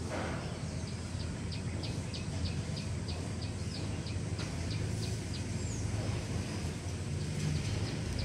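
Steady low engine hum, with a run of quick high chirps, about four a second, for a few seconds.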